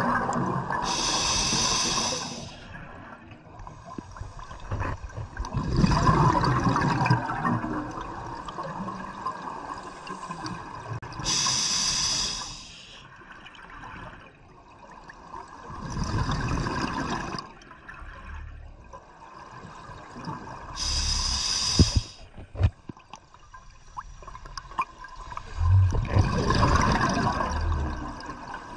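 Scuba regulator breathing recorded underwater: three slow breath cycles, each a sharp hiss of inhaled gas through the regulator followed a few seconds later by the bubbling rush of an exhalation.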